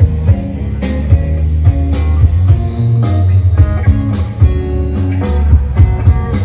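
Music with guitar over a heavy, booming bass line and a steady drum beat, played loudly.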